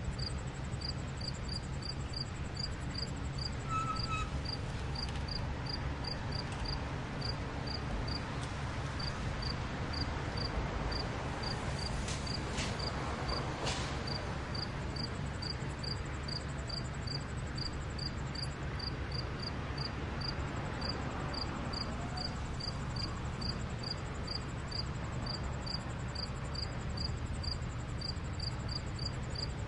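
A cricket chirping steadily about twice a second, with a fainter continuous high insect trill behind it, over a steady low city rumble.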